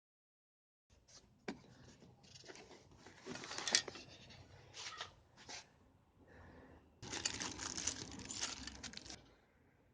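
Handling noise: rustling, crinkling and tearing in irregular bursts, with a sharp click shortly after it begins.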